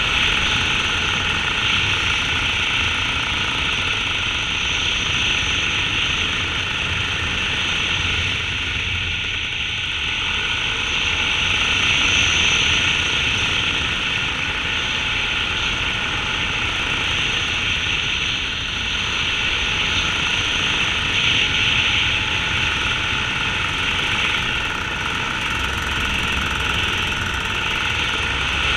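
Small aircraft engine and propeller running steadily in flight, mixed with wind rushing past the microphone.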